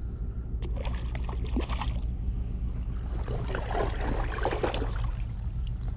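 Water sloshing and splashing in irregular spells, over a low steady rumble of wind on the microphone.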